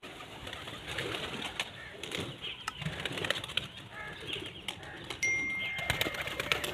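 A flock of domestic pigeons flapping their wings as they fly and settle, with many scattered sharp wing claps. A steady high tone sounds for about a second, about five seconds in.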